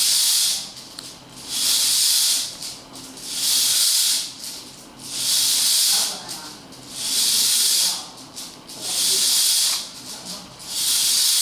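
Hula hoop spinning around a child's waist, giving a rhythmic hissing swish that comes once about every two seconds.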